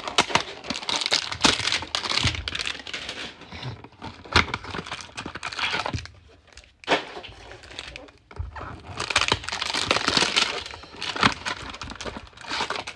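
Cardboard hanger boxes and packs of trading cards being handled and torn open: a dense crackling, crinkling and tearing with many sharp clicks, broken by two brief lulls midway.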